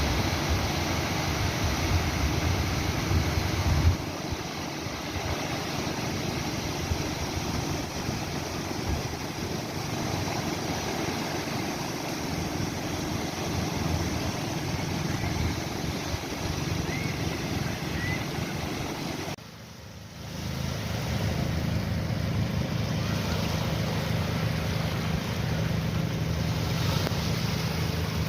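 Sea waves washing and breaking, with a steady low rumble under the surf. The sound drops away for about a second around twenty seconds in, then resumes.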